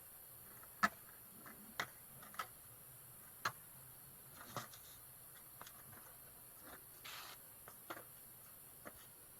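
Skateboard clacking and knocking: a string of sharp, irregularly spaced knocks and clicks, the loudest about a second in, over a faint steady hiss.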